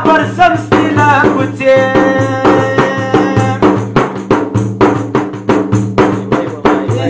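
Large frame drum (daira) struck by hand in a steady, driving rhythm, accompanying a man singing a Pashto folk tappa; the voice holds one long note in the first half, then drops out and leaves the drum alone.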